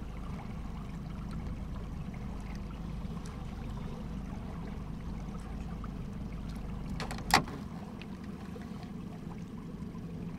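Steady low rumble of a boat sitting on the water, with water lapping at the hull. A single sharp knock about seven seconds in is the loudest sound, and the deepest part of the rumble drops away just after it.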